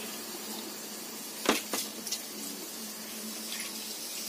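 A wooden spatula knocking against an aluminium pot of coconut milk and rice: one sharp knock about a second and a half in, then a couple of lighter clicks, over a steady hiss.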